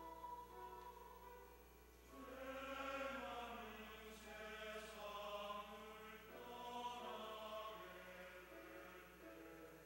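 Church choir of mixed voices singing the refrain of a Korean hymn in long held notes. It is softer for the first two seconds, then swells.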